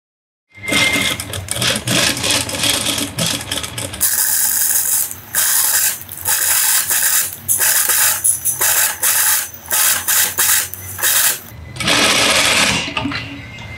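Table-mounted industrial sewing machine stitching a curved seam, running in short spurts with brief stops as the fabric is turned around the curve. It starts about half a second in.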